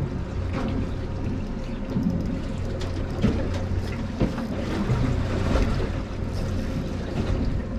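Boat's engine running steadily at low speed, with water washing against the hull and a few scattered knocks.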